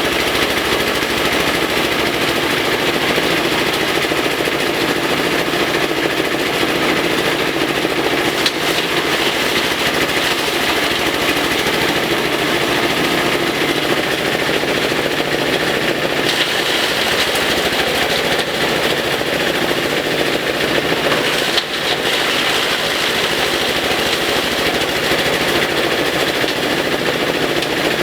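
Compost chopper machine running, its engine-driven shredder blades chopping elephant grass with a loud, steady, fast rattling chatter. The chatter falls off briefly about two-thirds of the way through.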